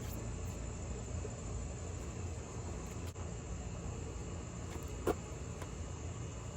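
Steady outdoor background of a low rumble and a thin, high, steady buzz, with one light click about five seconds in as the tail light housing is pushed into place.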